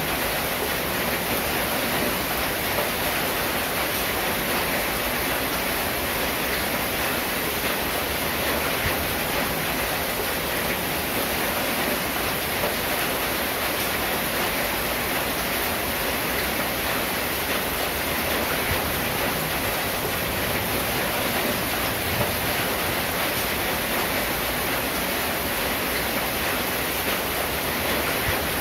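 Steady rain falling on a corrugated tin roof, an even hiss with no separate drips or knocks standing out.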